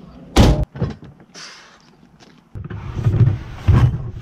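Loading gear into a van: a sharp, loud thud about half a second in and a lighter knock just after, then rustling and the bumping and scraping of a plastic storage tote being shoved into place among the cargo, with two more thuds near the end.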